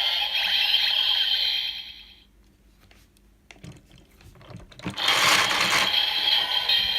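Kamen Rider Build toy transformation belt playing an electronic sound effect through its small speaker, fading out about two seconds in. A few sharp plastic clicks of the toy being handled follow. Another loud electronic sound effect starts about five seconds in.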